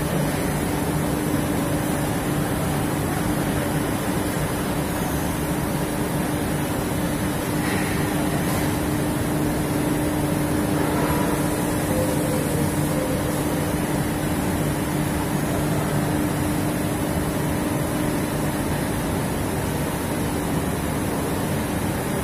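Steady industrial noise of factory machinery in a large hall: a constant rushing rumble with a low, even hum that stops shortly before the end.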